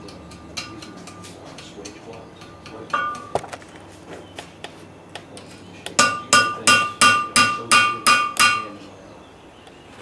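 Blacksmith's hand hammer striking hot iron on an anvil. Light, scattered taps give way to a run of about nine ringing blows, roughly three a second, that stops about two and a half seconds later.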